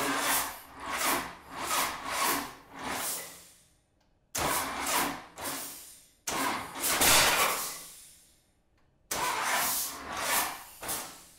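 The rebuilt 10-litre Hall-Scott aero engine being cranked over in four separate tries, each a pulsing run of compression strokes that dies away without the engine catching, with the half-compression device connected to ease the cranking.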